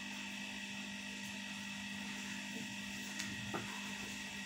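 Steady low electrical hum under quiet room tone, with two faint clicks about three seconds in.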